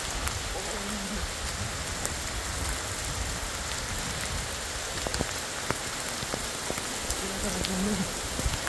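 Heavy rain falling steadily, with scattered sharp pattering of drops striking close by.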